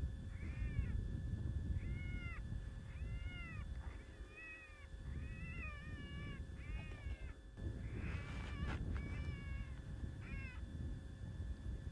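ICOtec electronic predator caller playing a young jackrabbit distress call: a run of high, wavering squealing cries, each one arching up and down, about one a second. The cries turn harsher and more ragged about eight seconds in, over a steady low rumble.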